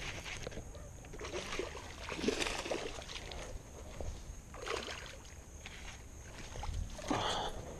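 A hooked bass splashing and thrashing at the water's surface as it is reeled in to the bank, in a few short bursts a couple of seconds apart.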